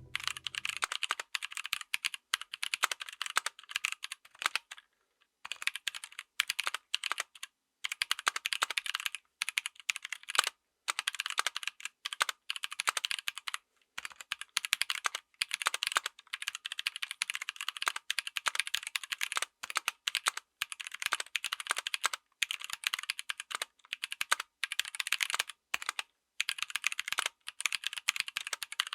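Typing on a mechanical keyboard with stock, unlubed NovelKeys Kailh Blueberry tactile switches: fast runs of crisp keystroke clicks, broken by brief pauses every few seconds.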